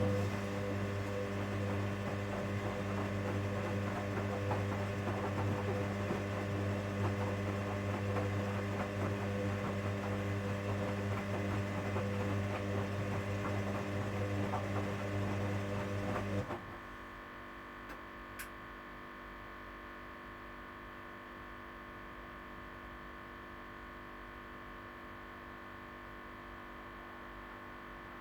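Hoover washing machine humming steadily, with a rough noise over the hum. The hum cuts off suddenly about sixteen seconds in, leaving a fainter steady hum, and a single click follows a couple of seconds later.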